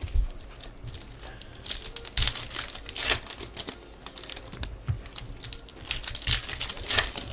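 Foil trading-card pack wrappers crinkling and tearing as packs are ripped open by hand, an irregular run of sharp crackles and rustles.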